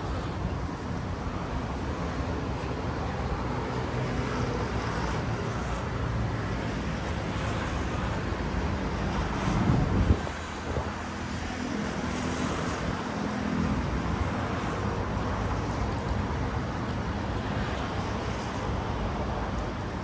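Open-air city ambience: a steady rumble of road traffic with wind on the microphone. About halfway through, a short loud whoosh swells and then cuts off abruptly.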